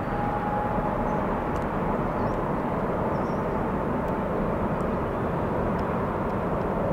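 Boeing 777-300ER's GE90 turbofans spooling up for a takeoff roll: a steady rumble with a whine that rises slowly, then holds.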